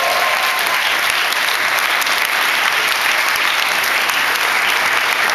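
A large seated audience applauding steadily.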